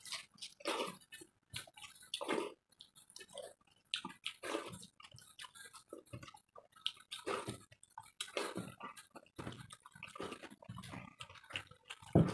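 Hands squishing and scooping watery fermented rice in steel plates, with irregular wet splashes and drips and mouthfuls of rice being chewed. A louder thump comes near the end.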